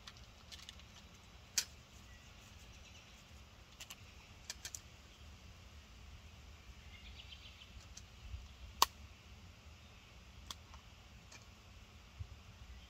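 Quiet campfire-side sounds: a faint steady background with a few sharp, isolated clicks and pops, the loudest about nine seconds in, from the ember fire and small handling of cookware.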